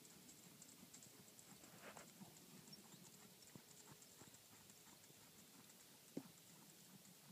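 Faint hoofbeats of a horse moving over a sand arena, soft, irregular taps with one sharper tap about six seconds in.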